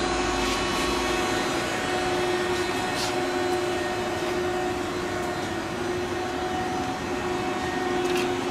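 Steady hum of running machinery, with one steady pitched tone over an even whirring noise, like an electric motor or pump running.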